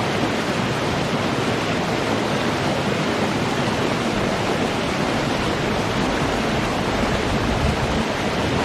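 Running water: a steady, even rush of flowing water.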